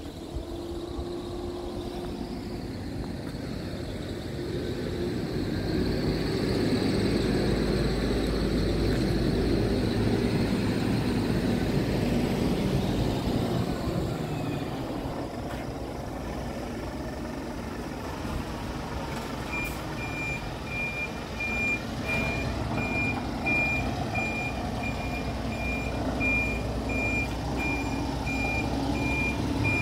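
Diesel truck engine running with a steady low rumble, louder for several seconds early on. About twenty seconds in, a reversing alarm starts beeping at an even pace over the engine.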